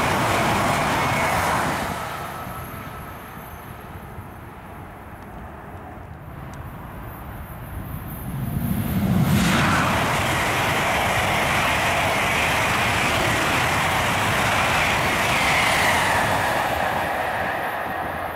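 High-speed ICE trains passing at speed on a high-speed line. An ICE's loud rush cuts off about two seconds in. After a quieter stretch, an ICE 3 double unit (class 403) comes up and sweeps past with a loud rushing noise from about nine seconds in, with a falling whine as it runs off and fades.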